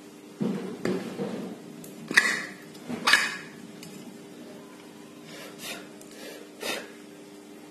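Ceiling fan motor parts being handled: about six separate metallic clinks and knocks, the two loudest about two and three seconds in.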